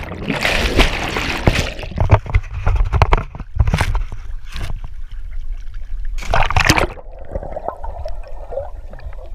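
Lake water sloshing and gurgling around a waterproof action camera that dips under and bobs above the surface: muffled underwater bubbling and rumble, broken by splashy bursts as it breaks the surface, the loudest about six and a half seconds in.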